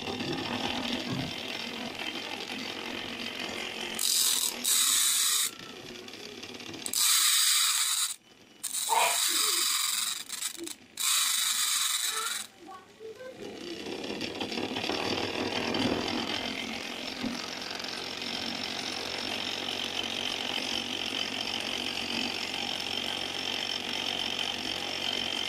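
The plastic gear train and drive mechanism of an opened CD/DVD player running with a steady mechanical whir. Between about 4 and 12 seconds in there are four louder, harsh bursts of noise.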